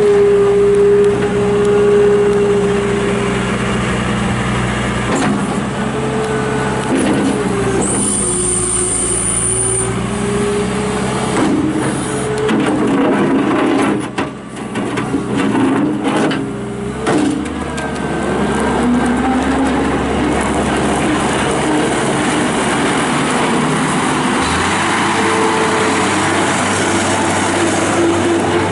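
1998 New Holland LX665 turbo diesel skid steer loader running, its engine speed rising and falling as the machine is driven and worked. A brief high whine comes about eight seconds in.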